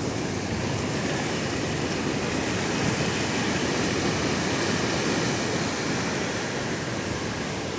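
Pacific surf washing up the beach, a continuous rushing that swells a little a few seconds in.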